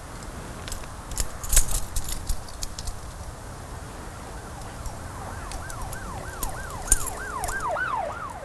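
A bunch of keys jingling and clicking as a key is worked off a metal key ring, loudest about a second and a half in. From about halfway through, a siren yelps alongside, a quick rise-and-fall repeating about three times a second.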